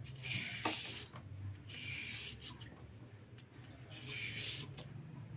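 Hand vegetable peeler scraping the skin off a raw carrot: three strokes about two seconds apart.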